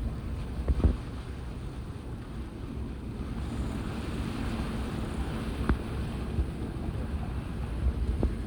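Wind buffeting the microphone over a steady low rumble of sea and boat engine, with a faint hum and a few sharp knocks: one about a second in, one near the middle and one near the end.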